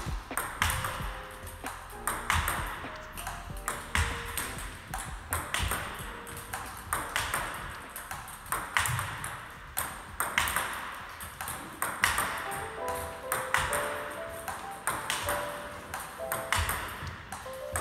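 Table tennis multi-ball drill: a quick, steady run of celluloid-plastic ball clicks as the balls are fed, bounce on the table and are struck back with backhand pushes. Background music with a light melody plays underneath.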